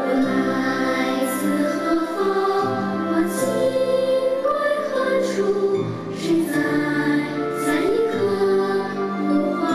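Children's choir singing with musical accompaniment, holding long notes.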